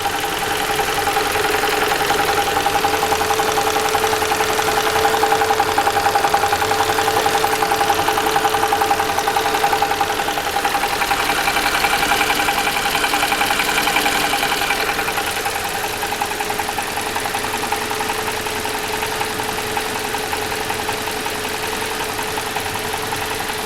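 Toyota Valvematic four-cylinder petrol engine idling with a steady, rapid knock.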